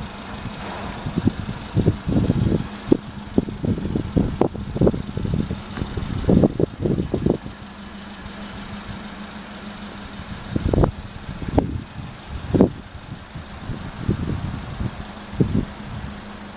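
A small engine idling steadily with a low hum, under irregular low thumps and rumbles that come in clusters.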